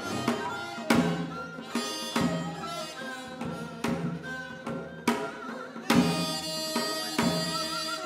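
Korean traditional music for the janggu dance: sharp janggu hourglass-drum strokes at an unhurried, uneven pace under a sustained melody line with wavering pitch.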